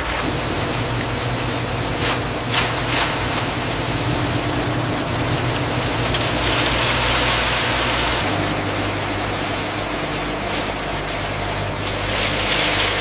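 Steady industrial machinery hum with a low drone whose pitch shifts slightly about two-thirds of the way through. A few sharp clicks come around two to three seconds in, and bursts of hissing come in the middle and near the end.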